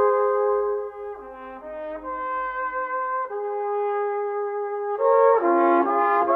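Background music of brass instruments playing slow, held chords, softer through the middle and swelling again about five seconds in.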